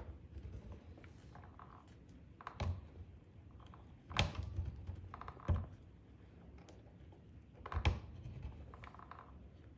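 Gloved hand pushing down and working a spring-loaded aluminium connector onto its threads on a pressure washer pump: rustling handling noise with four sharp clicks and knocks, the loudest about four and eight seconds in.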